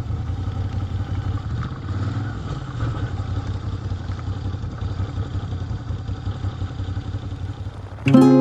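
Moto Guzzi V-twin motorcycle engine running with a rapid low pulsing beat. Background music cuts in near the end.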